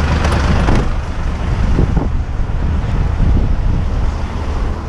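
Diesel engine of a rubbish truck running with a steady low rumble, with a short rush of noise in the first second.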